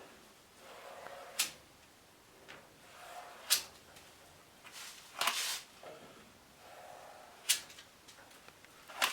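Cheap plastic spreader working body filler over a metal body panel in short scraping strokes, broken by four sharp clicks and one longer, louder rasp about five seconds in.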